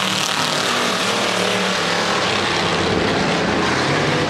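Pure stock dirt-track race cars running at racing speed, several engines going at once in a steady, loud din of overlapping engine notes as the cars pass close by.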